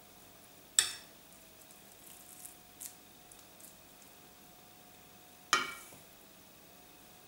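Two sharp metal clinks about four and a half seconds apart, each ringing briefly, of a metal spoon knocking against a stainless steel bowl, with a few faint soft taps between and a faint steady hum behind.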